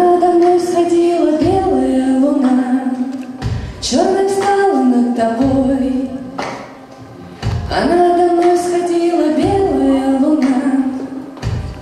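A woman singing a song live with a band, backed by keyboard and drums. Her melody comes in long held phrases, with a short pause a little past the middle.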